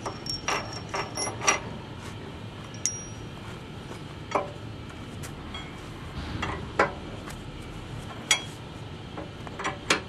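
Sharp metallic clicks and clinks of a wrench on the bolts of a manual wedge lock excavator coupler as they are backed out. There are a dozen or so, irregularly spaced: several close together in the first second and a half, then sparser.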